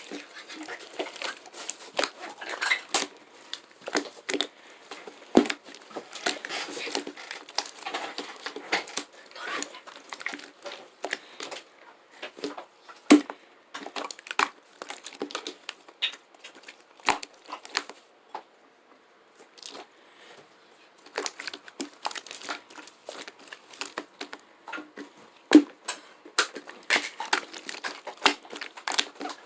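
Crinkling and rustling of some thin material being handled and crumpled: dense, irregular crackles and small clicks, with a short lull a little past halfway.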